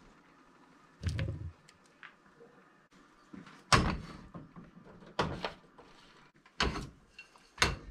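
Cookware being handled on an electric coil stove: a metal frying pan of green peppers set down and shifted on a burner, making five separate knocks and clunks, a dull thump about a second in and sharper knocks after.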